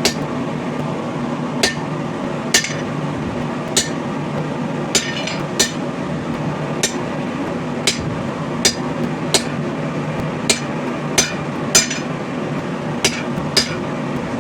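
Hammer tapping on steel, about one sharp ringing strike a second at uneven intervals, over a steady hum from a shop fan.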